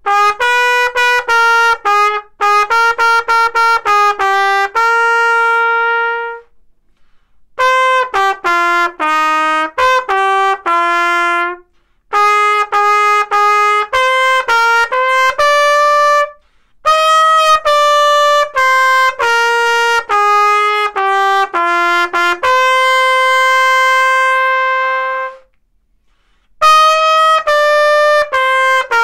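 Yamaha YTR-135 trumpet played solo, unaccompanied: a melody in phrases of short tongued notes, with two long held notes, and brief pauses for breath between phrases.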